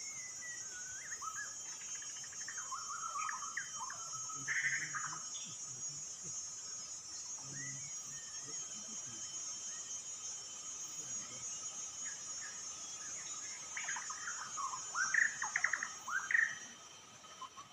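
A songbird singing quick, varied whistled phrases in two spells, one in the first few seconds and one about fourteen seconds in, over a steady high insect drone.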